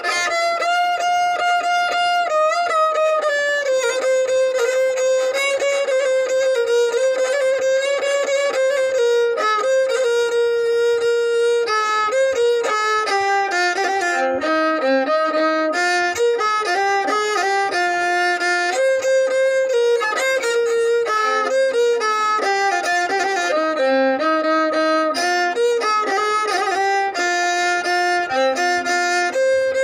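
Solo violin playing a melody, one note at a time, with some notes held and pitch slides between others.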